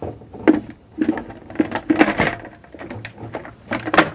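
Hard plastic housing parts of a Numatic Henry vacuum cleaner's motor head being handled and pushed together during reassembly: a run of irregular clicks, knocks and rattles, with a sharp knock near the end.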